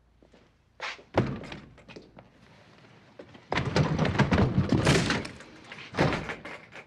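Thuds and banging on a wooden door: a couple of sharp knocks early, a dense stretch of banging and rattling about three and a half seconds in that lasts over a second, and one more thud near the end as the door comes open.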